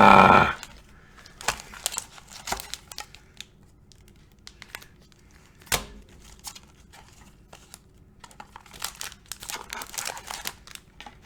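Thin plastic penny sleeves crinkling and rustling in the hands as an oversized trading card is pushed at them, with scattered light clicks and a denser bout of crinkling near the end; the sleeves are too small for the thick card. A brief loud burst opens it.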